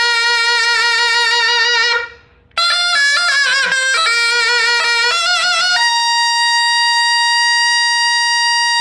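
Taepyeongso, the Korean conical double-reed shawm, played solo and loud: a long note with wavering vibrato, a short breath about two seconds in, a quick ornamented run of notes, then a long steady held note, higher than the first.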